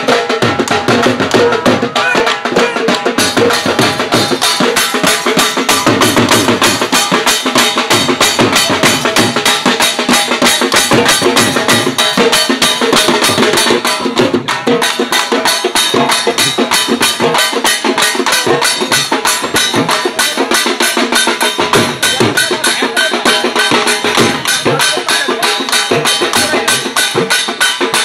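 Dhol drumming in a fast, steady dance rhythm, with a held melody over the beat.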